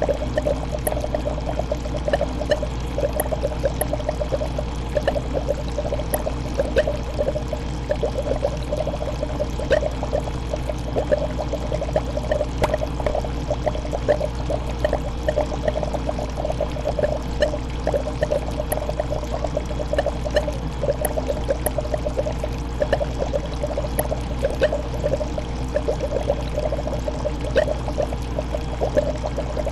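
Aquarium water bubbling and trickling steadily, a dense patter of small bubble ticks over a low steady hum.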